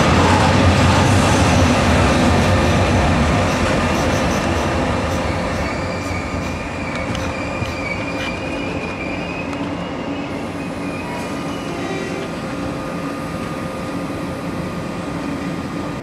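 Interregio-Express passenger train rolling and slowing, its running noise fading gradually, with a thin high wheel squeal from about six to ten seconds in.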